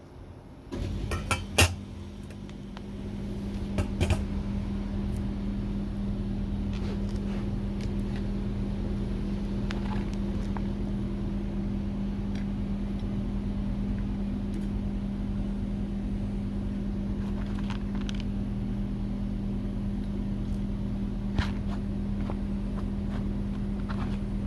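Cassette-gas single burner (SOTO ST330) lit with a few quick igniter clicks, then burning with a steady hum, with a few light knocks of cookware on top.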